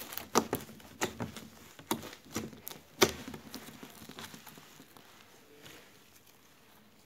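Yellow slime squeezed and folded by hand, giving a rapid run of sharp, wet clicks and pops, the loudest about three seconds in. The popping thins out in the last two seconds as the slime is stretched.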